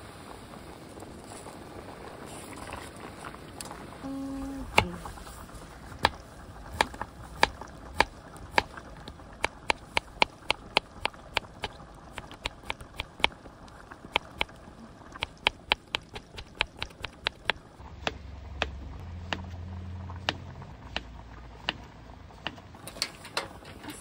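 Kitchen knife slicing a Korean zucchini on a wooden cutting board: a long run of sharp chops, roughly one to two a second, starting about five seconds in.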